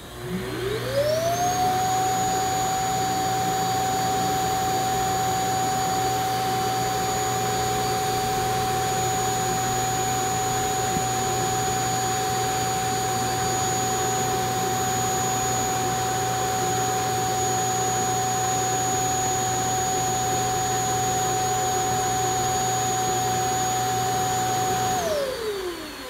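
Eufy X8 Pro self-emptying base station's suction motor evacuating the docked robot vacuum's dustbin. It spins up with a rising whine, runs steadily for over twenty seconds, then winds down with a falling whine near the end.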